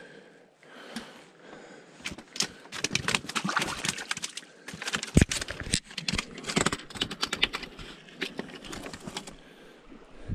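Freshly caught red porgy flapping on wet rock: a dense, irregular run of slaps and taps with a few louder knocks, starting about two seconds in and stopping shortly before the end.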